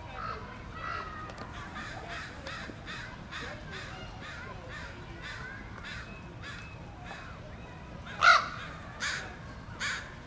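Crows cawing: a quick run of short, harsh caws, then one much louder caw past the middle followed by slower caws.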